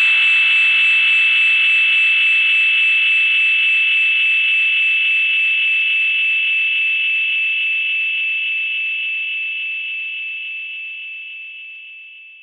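A steady high-pitched whine with a hiss around it, fading slowly to silence over about twelve seconds; the low sounds beneath it drop away about two seconds in.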